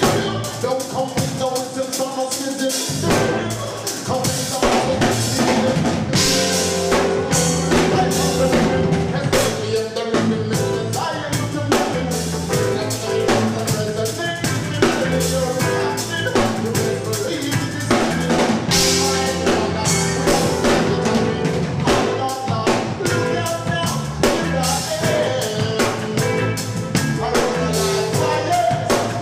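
Live rock band playing an instrumental passage, the drum kit out front. A bass line comes in about three seconds in.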